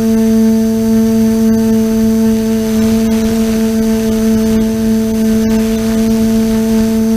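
TBS Discovery quadcopter's brushless motors and propellers droning at a steady pitch while hovering, heard loud from the camera on the drone, with a low rumble underneath.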